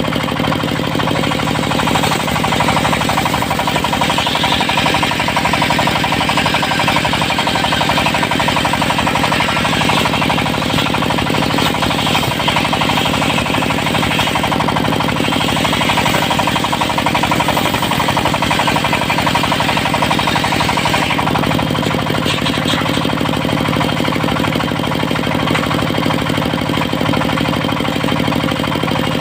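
Diesel engine driving a portable circular-saw sawmill, running steadily with a rapid knocking pulse, while the blade rips through teak. The higher cutting noise eases off about two-thirds of the way through.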